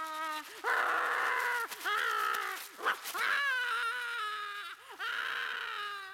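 A cartoon poodle whining and wailing in distress: a run of four or five long, drawn-out cries, each sliding slowly down in pitch.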